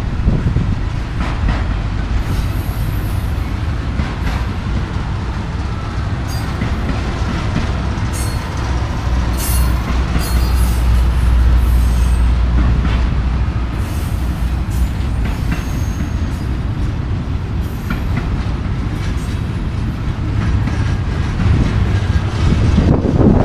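Freight cars of a Florida East Coast Railway intermodal train, flatcars carrying highway trailers and containers, rolling past with a steady heavy rumble. Short high-pitched wheel squeals come and go over the rumble.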